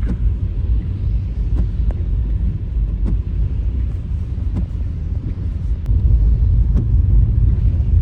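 Low, steady rumble of a car driving on a snowy road, heard from inside the cabin, with a few faint scattered clicks; it grows a little louder about six seconds in.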